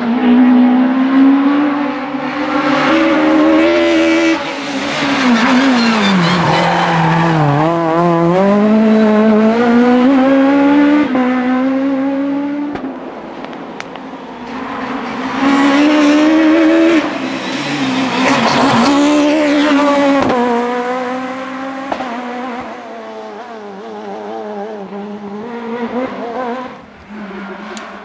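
Kit Car rally cars' high-revving engines passing at speed, with the engine note climbing through the gears, dropping sharply under braking and downshifts, then climbing again. The note fades away near the end.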